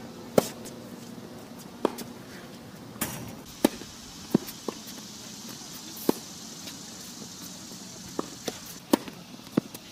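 Tennis rally on a hard court: about ten sharp pops of the ball striking racket strings and bouncing off the court, irregularly spaced. The loudest is a forehand hit about half a second in.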